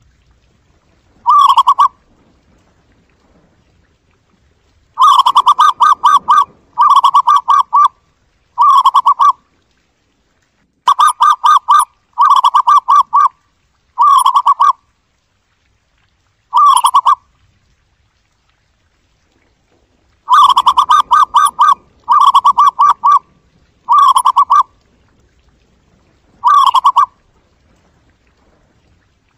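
Zebra dove calling: repeated phrases of rapid, stuttering coos, each phrase under a second and a half long, with pauses of one to three seconds between them.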